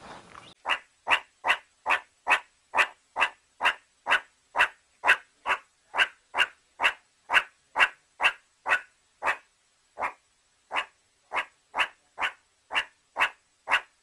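Meerkat giving a long series of short, sharp barking calls, about two a second, with a short pause partway through.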